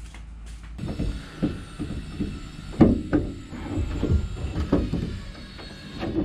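Needle-nose pliers working the lock rod and clip on a door latch linkage inside a steel truck door, with irregular metallic clicks, knocks and rattles, the loudest about three seconds in.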